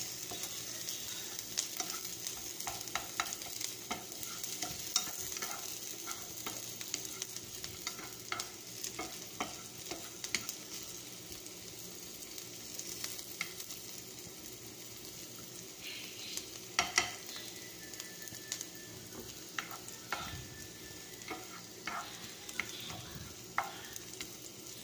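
Chopped onion and green chili sautéing in oil in a frying pan, a steady light sizzle as the onion browns, while a wooden utensil stirs them and taps and scrapes against the pan many times.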